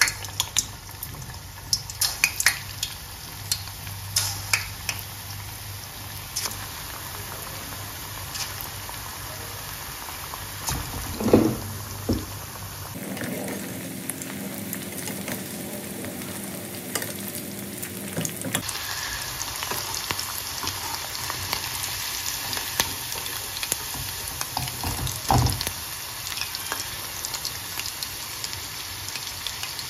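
Chicken pakoras deep-frying in hot oil in a steel kadai: a steady sizzle with sharp pops and clicks, thickest in the first few seconds, and a louder knock about eleven seconds in. A slotted steel spoon clinks against the pan as the pieces are turned.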